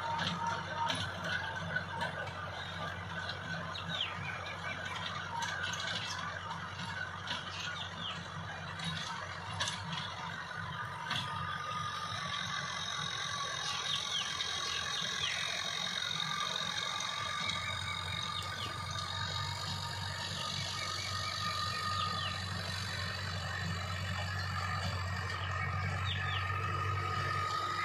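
Diesel tractor engine running steadily under load as it drives a rear-mounted rotary tiller through the soil, with a clattering rattle from the machinery that thins out about halfway through.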